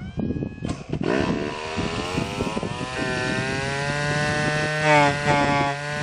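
Small nitro glow engine of an RC buggy being cranked, catching about a second in. It then runs with its pitch climbing and settling into a steady, high-pitched buzz, with a short rev near the end.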